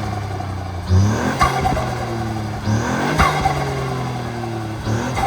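Ford Puma ST's turbocharged three-cylinder engine, remapped and fitted with an aftermarket intake, revved in three quick blips about two seconds apart, each falling back towards idle. A sharp burst of turbo flutter follows the first two blips as the throttle shuts.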